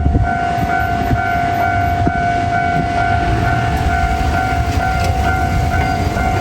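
Japanese railroad crossing warning bell ringing its repeating electronic "kan-kan" tone, about two and a half strokes a second, over a steady low rumble.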